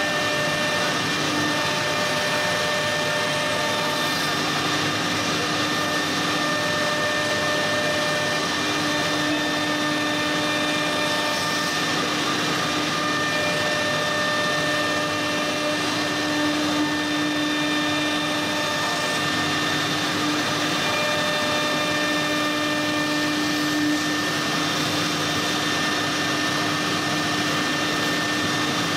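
Horizontal side spindle of a CC-M1325AC3 CNC door-making router running steadily with a constant whine while its bit mills into the edge of a wooden door panel.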